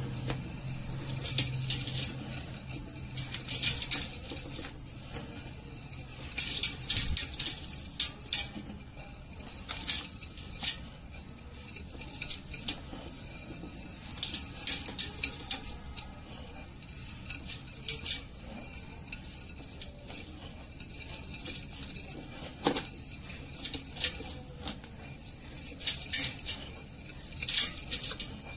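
Hands digging, scooping and squeezing dry, dusty sand in a small pot: gritty crunching and rustling, with irregular clusters of sharp crackles as the grains grind and scrape against the pot.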